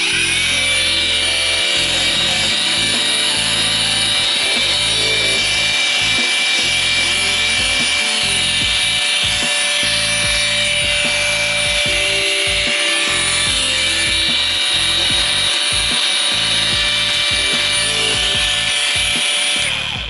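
Worx WU808 20 V brushless cordless angle grinder, fitted with a foam polishing pad, running free with no load: a loud, steady high whine that starts right at the beginning and cuts off near the end.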